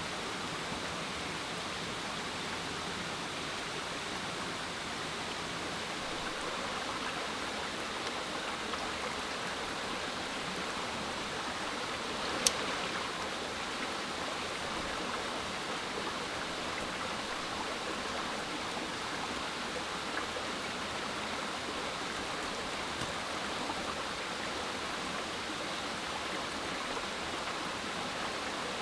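Steady, even hiss of outdoor water, with a single sharp crack about twelve seconds in.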